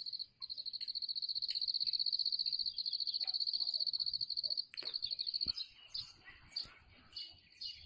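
An insect trilling at one high pitch in a rapid, even pulse for about five seconds, then stopping. Faint scattered chirps follow near the end.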